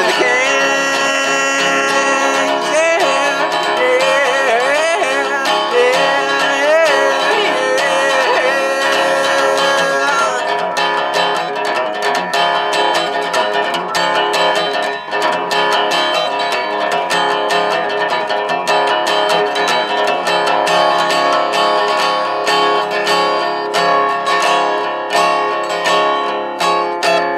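Resonator guitar being strummed and picked. A wavering wordless vocal line runs over it for the first ten seconds or so, then the guitar carries on alone with quick fingerpicked notes.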